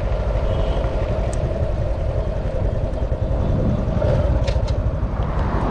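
Motorcycle running steadily while riding along a road, with a heavy wind rumble on the microphone.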